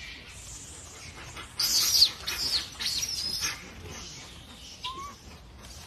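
Shrill animal calls: a burst of high squeals with falling pitch lasting about two seconds, starting a moment in, then a single short chirp near the end.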